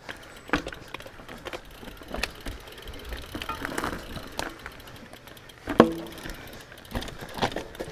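Mountain bike rolling over a rough dirt and rock trail: tyre noise with irregular clicks and rattles from the bike, and one loud knock about six seconds in.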